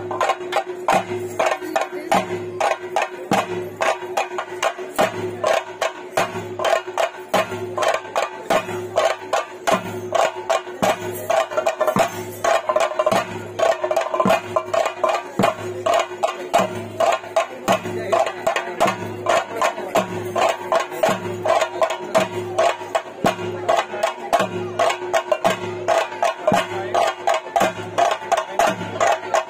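Theyyam ritual percussion: chenda drums beaten in a fast, steady rhythm, with a deep stroke about once a second over a steady held tone.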